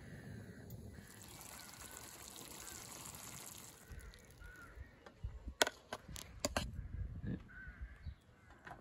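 Pasta water being poured off a stainless saucepan past a plastic lid and splashing onto grass, running for about four seconds, then a few sharp clinks of the lid and pan being handled. Birds call faintly throughout.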